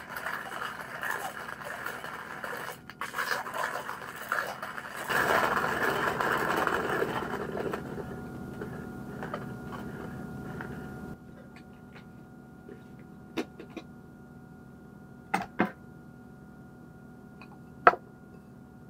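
Manual coffee grinder grinding beans as its crank is turned, a dense grinding rasp that stops about eleven seconds in. Then a few sharp clicks and knocks as the grinder is handled and its catch cup taken off.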